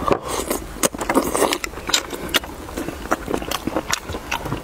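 Eating sounds: a person chewing a mouthful of chicken and rice, with many short, irregular clicks and smacks of mouth and chopsticks against a porcelain rice bowl.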